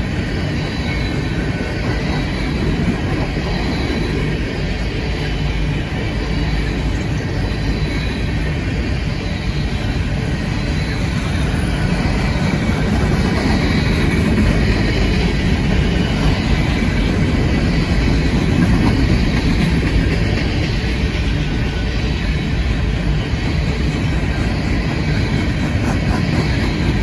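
Freight train cars rolling steadily past, steel wheels running on the rails.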